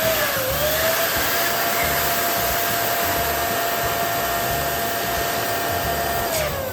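Electric air pump running with a steady whine and a rush of air, then switched off near the end, its whine falling in pitch as the motor spins down.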